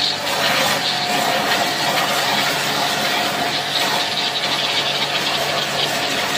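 Pressure washer running steadily, a constant motor hum under the hiss of its water jet spraying the inner tub of a top-loading washing machine, blasting built-up grime out of the crevices.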